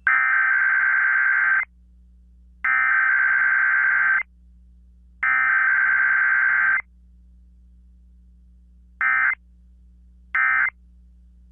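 Emergency Alert System SAME digital data bursts, a buzzing two-tone warble: the header sent three times, each burst about a second and a half long with a second's gap between them. Near the end come two short bursts of the same tones, the end-of-message code.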